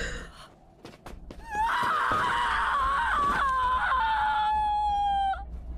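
A person wailing: one long, high-pitched cry that starts about a second and a half in, wavers, then is held and slowly falls in pitch before it stops near the end.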